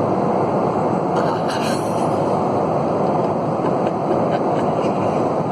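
Steady roar of an airliner cabin in flight: engine and airflow noise heard from inside the cabin, even and unchanging, with a few faint light clicks about a second in.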